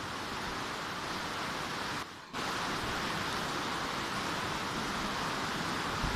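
Steady rain falling, an even hiss that drops out briefly about two seconds in.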